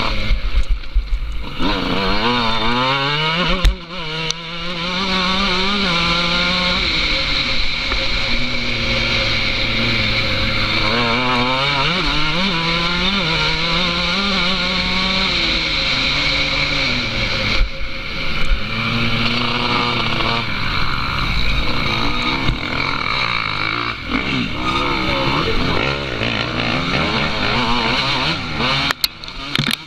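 Car engine heard from on board, repeatedly revving up and easing off as the vehicle speeds along a winding road, with a short dip in sound about four seconds in. A steady hiss of road and wind noise runs underneath.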